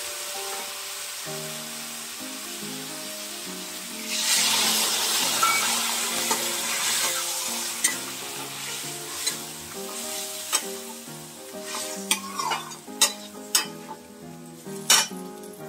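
Vegetables sizzling in oil in a metal kadai, the frying hiss growing much louder about four seconds in as mustard-poppy paste is stirred through. In the second half a metal spatula clinks and scrapes against the pan several times.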